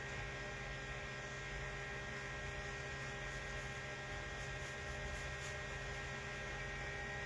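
Steady electrical mains hum with several steady tones stacked over it, unchanging throughout.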